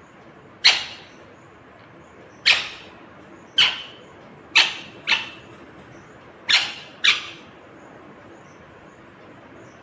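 A ringneck parakeet (rose-ringed parakeet) giving seven short, sharp squawks at uneven intervals over about seven seconds, over a faint steady hiss.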